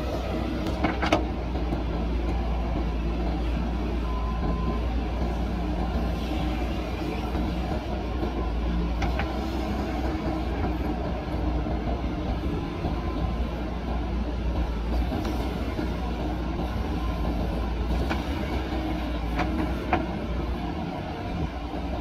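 JCB backhoe loader's diesel engine running steadily under hydraulic load as it digs and loads dirt. A few sharp metallic clanks come from the bucket and arm, near the start, about halfway and near the end.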